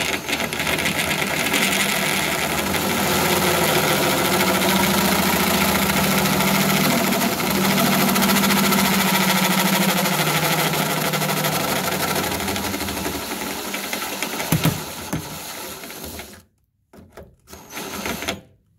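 Electric drill spinning a step drill bit, enlarging a hole in a metal door frame. The drill runs steadily for about sixteen seconds, stops suddenly, then runs again in one short burst near the end.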